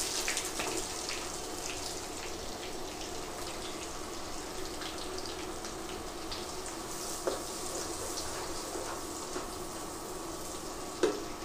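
Freshly added chopped onions frying in hot oil in a nonstick pan: a steady sizzling hiss with scattered small pops, stirred now and then with a wooden spatula.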